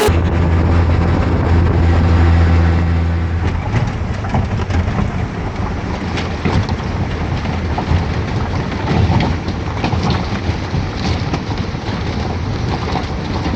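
Vehicle engine humming steadily for the first few seconds, then loud rumbling road and motion noise with scattered knocks.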